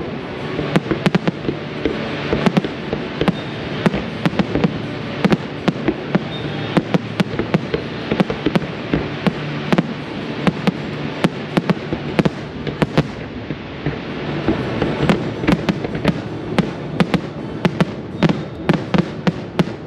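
Aerial firework shells bursting in quick succession: a dense run of sharp bangs over a continuous rumble and crackle, thinning briefly about two-thirds through before picking up again.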